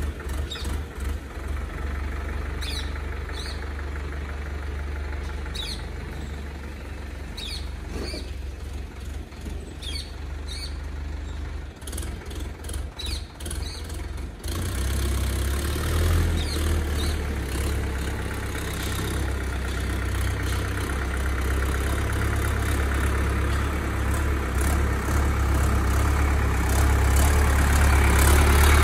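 Indo Farm 3065 DI tractor's diesel engine running as the tractor works a rear blade over the dirt yard, getting louder in the second half and loudest near the end as it comes back close. Small birds chirp now and then in the first half.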